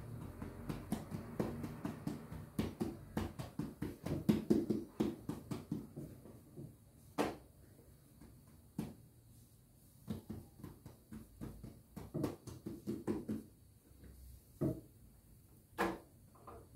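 Bread dough being worked by hand on a board: runs of quick soft pats and thuds, broken by a few single sharper knocks.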